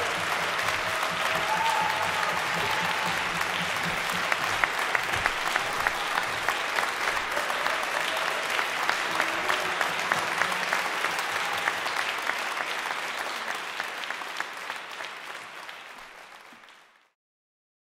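Concert hall audience applauding, the clapping falling into a rhythmic beat in unison about four seconds in, then fading out near the end.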